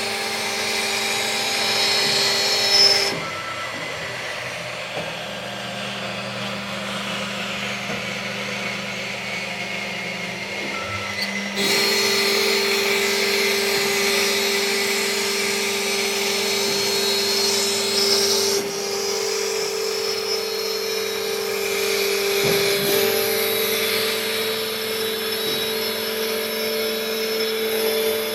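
CNC router spindle running with a steady whine while the bit cuts wood, giving a high hissing cutting noise. The cutting noise drops away abruptly about three seconds in and returns abruptly about twelve seconds in.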